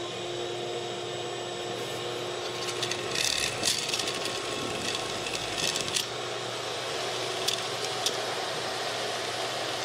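Vacuum cleaner running steadily, sucking kite string through an electrical conduit run, with light clicks and rattles from the spool of string as it is handled and pays out.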